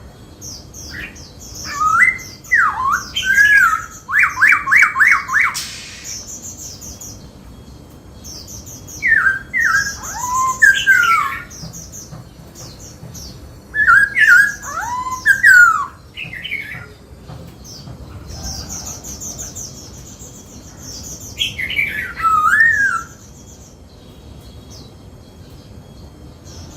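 Black-throated laughingthrush singing: four loud bouts of rich whistled notes that slide up and down, the first ending in a fast trill, with thin high chattering notes alongside.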